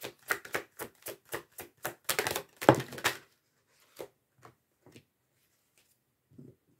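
A deck of Soul Truth oracle cards being shuffled by hand: quick card slaps, about four a second, thickening into a dense flurry about two seconds in, then a few scattered soft taps.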